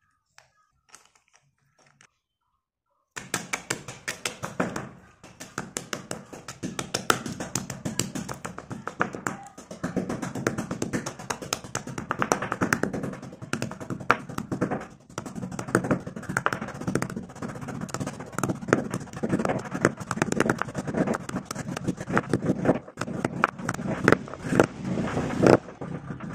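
Slate pencils being crushed with a pestle in a stone mortar: a dense run of rapid crunching knocks and rattling pieces, starting suddenly about three seconds in after near silence.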